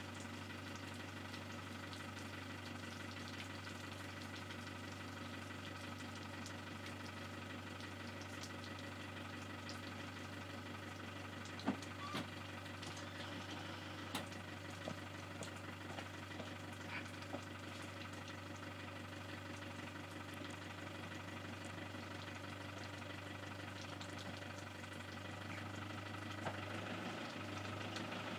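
Lorry's diesel engine idling steadily, with a few light clicks about halfway through and the engine note growing slightly louder near the end.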